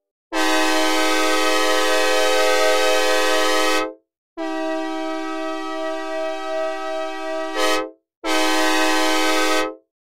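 Synthesized recreation of a Nathan K5LA five-chime locomotive air horn, sounded dry without reverb: two long blasts and a shorter third one, each stopping cleanly. The second blast is a little quieter and swells briefly just before it ends.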